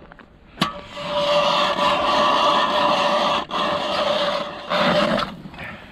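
Ice auger boring a hole through lake ice: a steady grinding with a steady whine, broken by a short pause partway through, then a shorter final burst.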